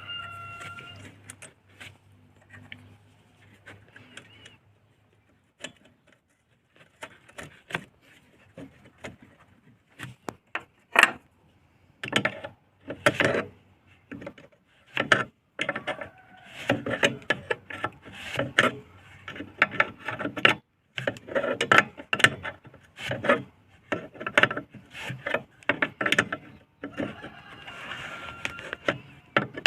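Irregular sharp knocks and clicks from a VAZ car's dashboard. They come sparsely at first, then thick and fast from about twelve seconds in. A rooster crows briefly at the very start and again near the end.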